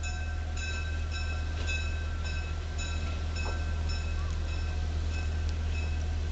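Diesel locomotive idling with a steady low rumble while a railroad bell rings about twice a second.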